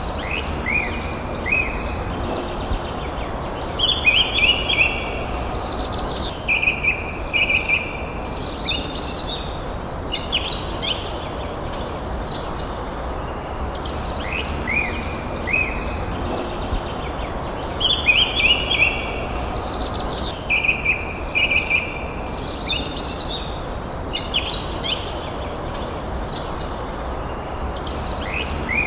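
Several forest birds calling: high chirps and short falling trills in clusters over a steady low background noise. The same run of calls comes round again about fourteen seconds later.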